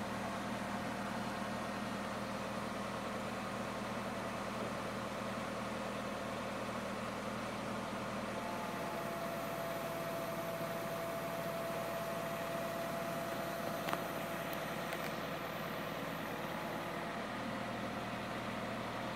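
Idling engine of a Mitsubishi crane truck running its truck-mounted hydraulic crane, a steady hum. A higher steady whine comes in about eight and a half seconds in and stops with a sharp click around fourteen seconds.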